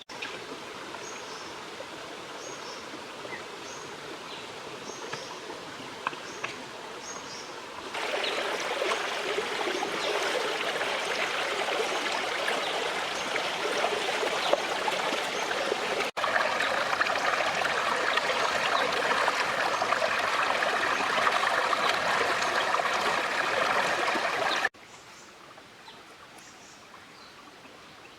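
Stream water flowing and trickling, a steady rushing that gets louder in steps at about 8 and 16 seconds and drops away sharply near the end. Faint high chirps repeat over the water in the first stretch.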